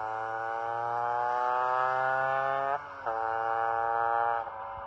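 Two-stroke Vespa scooter engine with a 144 cc Quattrini cylinder kit, accelerating hard: the revs climb steadily, drop sharply at an upshift about three seconds in, then climb again until another drop near the end.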